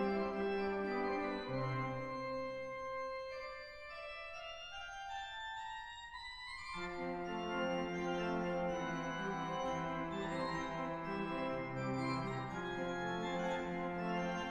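Organ playing slow, sustained chords. The lower notes fall away for a few seconds in the middle, then a full chord comes in abruptly about seven seconds in.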